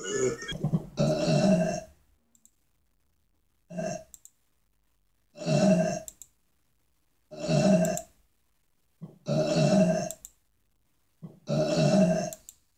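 A series of short, pitched vocal sounds, about seven of them, each under a second long and coming roughly every one and a half to two seconds, with silence between.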